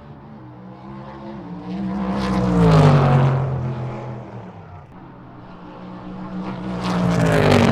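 Race car engine passing by at speed twice: each time it builds to a peak, then its pitch drops as it goes away, the first pass about three seconds in and the second near the end.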